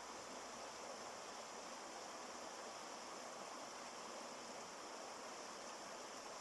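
Mountain river rushing over rocks, a steady even rush of water.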